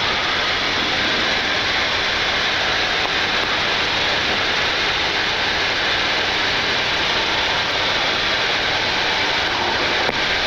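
Steady flight-deck noise of a Boeing 747-8 taxiing with its engines at idle: an even, unbroken rushing hiss.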